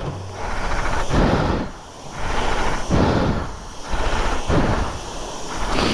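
High-pressure jet-wash lance spraying water onto a motorcycle. The hiss and spatter of the water rise and fall several times.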